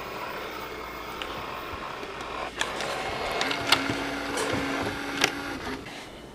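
Tape transport of a Panasonic AG-450 S-VHS camcorder running: a steady mechanical whir. From about two and a half seconds in come a series of sharp clicks, with a steady motor hum from about three and a half to five and a half seconds in.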